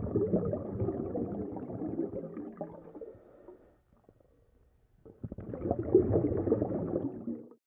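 Muffled underwater water noise, a dull rumbling and gurgling as heard by a camera below the sea surface, in two stretches with a short lull about four seconds in.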